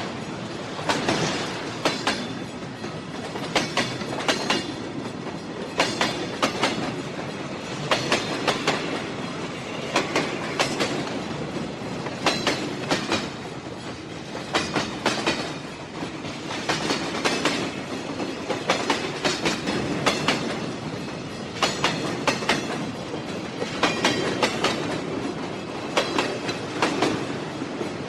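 Train wheels rolling along the track, clicking over the rail joints in a steady clickety-clack. Sharp clicks come in clusters about every two seconds over a constant rumble.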